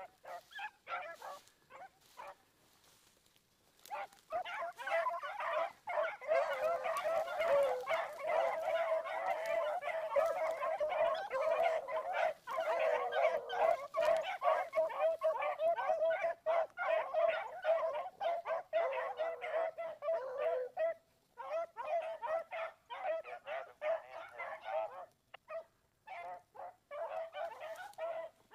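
A pack of beagles baying together on a rabbit's trail. A few calls come first, then the pack gives tongue in a steady overlapping chorus for most of the time. About three quarters of the way through it breaks into scattered calls.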